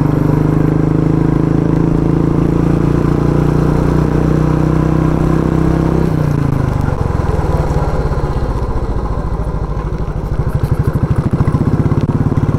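Motorcycle engine running steadily while riding, then its pitch drops about six seconds in as the revs fall, settling into a lower, pulsing beat that grows louder near the end.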